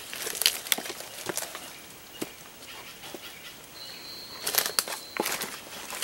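Footsteps crunching through dry leaf litter and brushing past undergrowth, irregular crackles and snaps, busiest near the end. A thin steady high tone is held for about a second and a half partway through.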